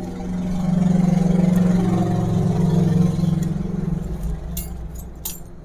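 A motor vehicle's engine passing close by, swelling up over the first second and fading away after about four seconds. A couple of sharp metal tool clinks come near the end.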